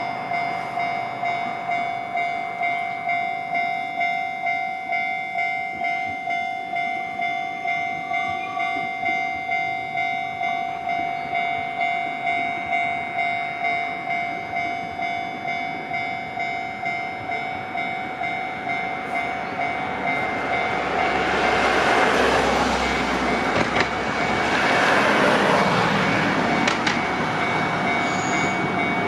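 Japanese level-crossing warning alarm ringing steadily at a little under two rings a second. From about twenty seconds in, an electric train passes over the crossing, its noise swelling twice over the alarm.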